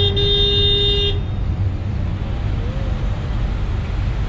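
Steady low rumble of road traffic, with a vehicle horn held for a few seconds that cuts off about a second in.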